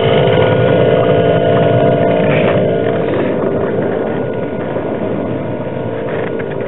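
Webasto diesel-fired block heater running steadily on a cold, snow-packed Sno-Cat engine, a continuous burner-and-blower hum with a steady whine; it is preheating the engine before a first start. The sound eases slightly after about three seconds.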